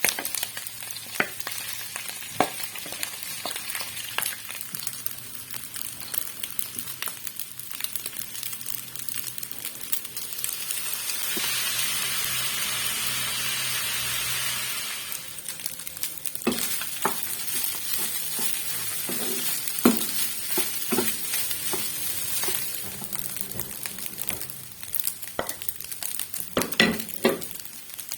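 Food frying and sizzling in a pan, with scattered clicks and scrapes of a utensil stirring it. The hiss grows louder for about four seconds midway, then settles back.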